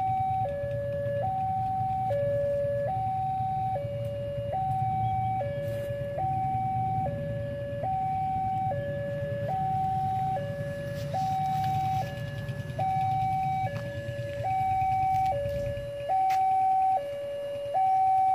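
Railway level-crossing warning alarm sounding: an electronic two-tone signal alternating evenly between a high and a low note, each held just under a second. It warns that a train is approaching with the barriers down, and grows louder near the end.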